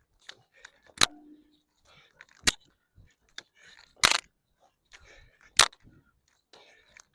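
Loud, sharp slaps or impacts repeating about every second and a half, the rhythm of an exercise done rep after rep to failure, with fainter breathy noise between them.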